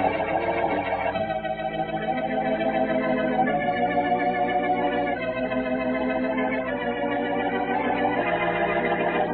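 Organ music playing sustained chords that shift every second or two, with the dull, narrow sound of an old radio broadcast recording.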